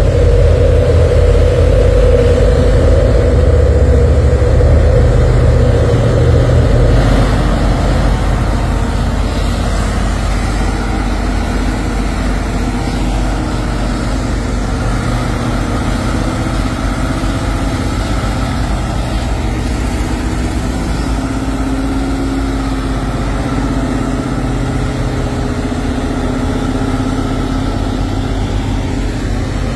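Heavy diesel tractor trucks hauling shipping containers, their engines rumbling steadily as they pull slowly up a climb. The engine sound eases a little after about seven seconds.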